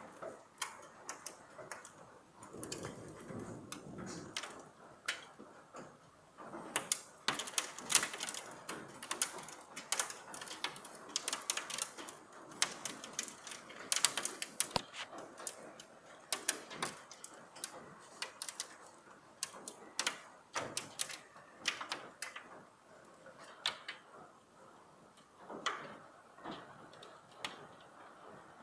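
Hailstones striking hard surfaces in a hailstorm: a dense, irregular patter of sharp clicks and cracks over a steady hiss, heaviest through the middle and thinning out later on.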